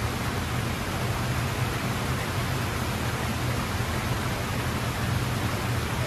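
Artificial indoor waterfall: water cascading over rockwork into an aquarium pool, a steady rushing splash with a low hum underneath.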